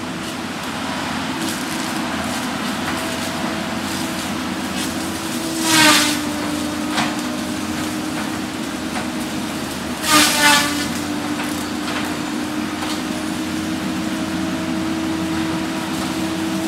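Cat 573C feller buncher running with a steady whine from its spinning disc saw head. Twice, about six seconds in and again about ten seconds in, a brief loud grinding burst as the saw cuts through a tree; the second one comes as a double.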